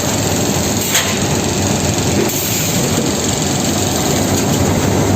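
Bagging scale line with an inline bag-closing sewing machine running: a steady mechanical clatter, with a short click about a second in.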